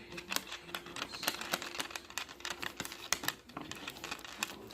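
Slime being squeezed and worked by hand, giving rapid, irregular sticky clicks and small pops.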